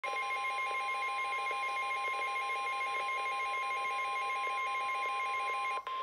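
Midland WR-300 NOAA weather radio sounding a flash flood warning alert: the National Weather Service's steady single-pitch warning alarm tone under a fast-pulsing electronic warble. Just before the end the pulsing stops with a brief dropout, leaving the steady tone.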